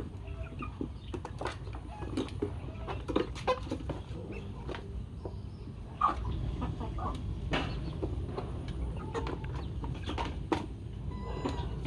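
Chickens clucking in short scattered calls, over a steady low rumble.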